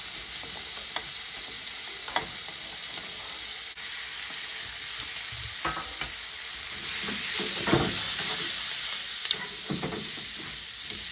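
Sliced meat and vegetables sizzling in oil in a frying pan as onion, bell pepper, carrot and cabbage are tipped in and stirred with wooden chopsticks, with scattered clicks. The sizzle swells louder about seven seconds in.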